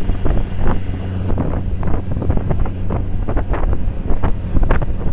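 Speedboat running at speed: a steady low engine drone under heavy, gusty wind buffeting on the microphone, with rushing water.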